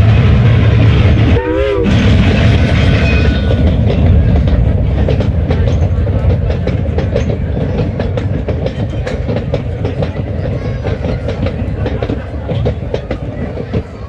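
Train running on rails: a steady low rumble with rapid wheel clicks over the track, and a brief wavering tone about one and a half seconds in.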